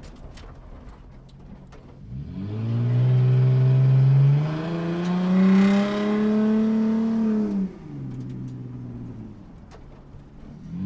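Sports car engine accelerating: a low steady hum, then about two seconds in the engine revs up and climbs in pitch, dips briefly as it shifts gear and climbs again, and is loudest in the middle before dropping back to a low hum near the end.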